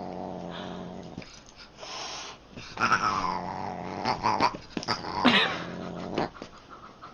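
A pet animal growling low and steadily, then giving two higher, falling cries about three and five seconds in.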